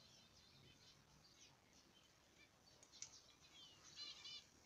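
Faint chirping and calls of small aviary birds, scattered through, with a short run of quick repeated chirps about four seconds in.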